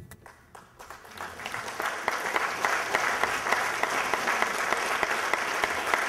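Audience applause: a few scattered claps at first, swelling within about two seconds into full, steady applause.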